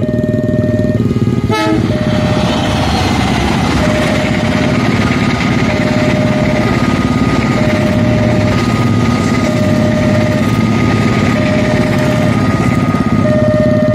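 Passenger train carriages rolling past at speed over the rails, a loud steady rush of wheel and bogie noise. Over it, the level crossing's warning alarm sounds a single tone in even pulses, about one every two seconds.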